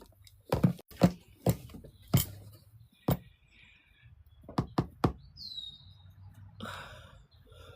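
A series of about eight sharp, irregular taps or knocks over the first five seconds, then a short, high, falling chirp.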